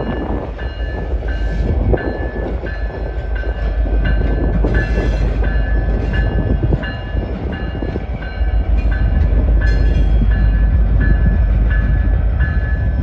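Norfolk Southern diesel-electric locomotive rolling past, its engine running with a heavy low rumble, while its bell rings steadily a little under twice a second. A short hiss comes about five seconds in.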